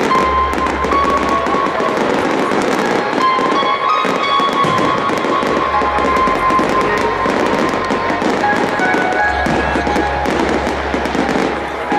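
Aerial fireworks display: a dense, continuous run of bangs and crackles from bursting shells, with music playing along.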